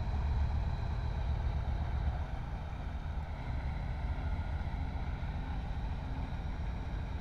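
Tugboat's diesel engine running hard while towing a grounded coal barge: a steady low rumble that eases slightly about two seconds in.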